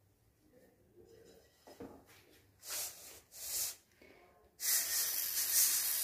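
Dry-roasted lentils pouring and sliding out of an aluminium kadai onto a steel plate: a rustling, hiss-like rush that starts about four and a half seconds in and is the loudest sound. Before it come two short rustles of the grains shifting in the tilted pan.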